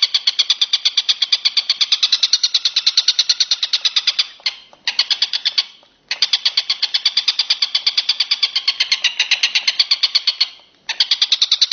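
Recorded animal call used for songbird training: a fast, evenly pulsed high-pitched trill of about eight pulses a second that stops and restarts twice.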